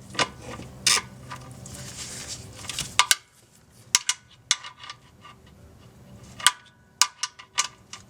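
3/8-inch ratchet and 14 mm socket tightening an oil drain plug: sharp metallic clicks and clinks in short irregular groups, scattered across several seconds.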